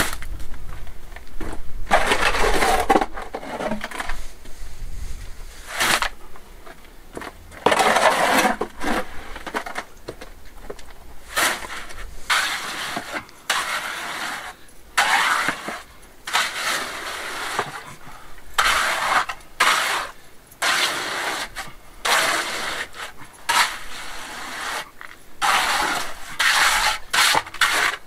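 Trowel scraping and spreading wet sand-and-gravel concrete in a form, in repeated gritty strokes of a second or two each with short pauses between.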